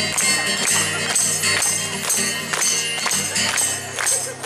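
Live band music with sharp strummed or struck strokes at a steady quick beat over held low notes; the low notes fall away near the end.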